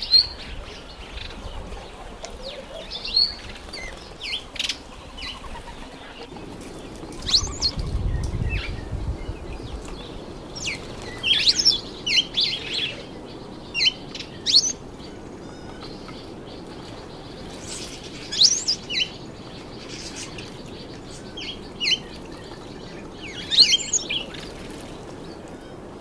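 Small garden birds giving short, high chirps at scattered moments, some in quick little runs, with the wing-fluttering splashes of a streaky-headed canary bathing in a shallow birdbath.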